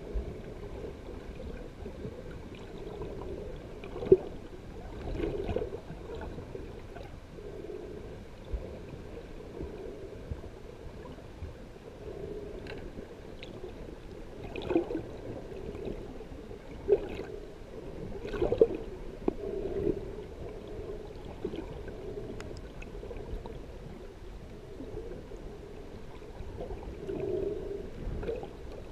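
Muffled underwater sound heard through a waterproof camera housing: a steady low murmur with occasional short knocks and clicks, the sharpest about four seconds in and a cluster between fifteen and nineteen seconds.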